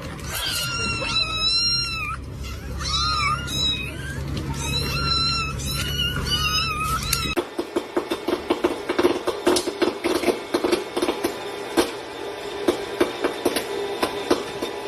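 A cat, likely a kitten, meowing again and again in short, high-pitched calls that bend in pitch. About seven seconds in, this cuts to a rapid, irregular run of clicks and taps.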